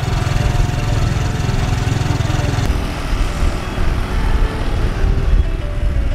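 Motorcycle engine running with wind rumble on the microphone while riding along a road. The low rumble eases a little about two and a half seconds in.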